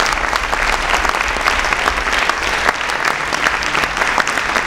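Audience and panellists applauding, a dense steady clapping.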